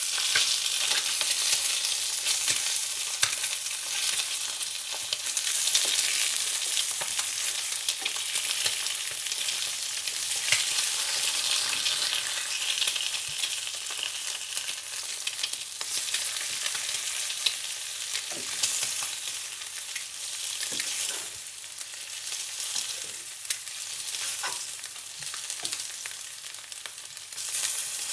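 Food frying in hot fat, sizzling with a steady hiss and scattered small pops and crackles.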